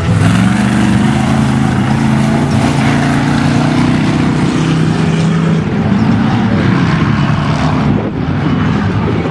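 Off-road race truck engine running hard at speed, its pitch holding fairly steady with small rises and dips, over a loud rushing of wind and terrain noise.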